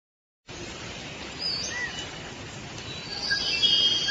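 Birds chirping over a steady hiss of outdoor ambience, starting about half a second in. The calls are short chirps and brief pitch glides, with a cluster of them near the end.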